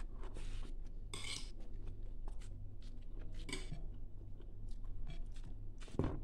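Quiet sounds of eating rice and vegetables by hand from a china plate: small scrapes and clicks of fingers on the plate, with chewing. A steady low hum runs underneath, and there is a soft knock near the end.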